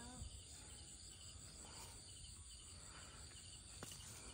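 Faint crickets chirping in short repeated pulses, with a steady high insect drone behind them. A single sharp click sounds near the end.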